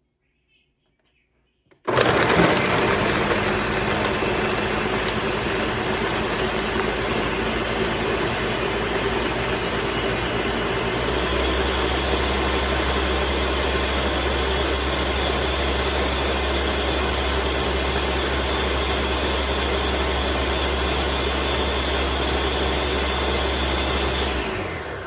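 Electric blender switched on about two seconds in and running steadily, blending a thick mix of peanuts, oats and liquids into peanut punch; its note shifts about halfway through, and it winds down with a falling whine near the end.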